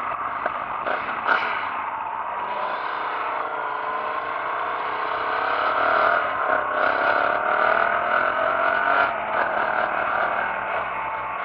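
Motorcycle engine running under way on a bike-mounted camera, its pitch rising and falling gently as the throttle changes, with a brief dip and pick-up a little past the middle.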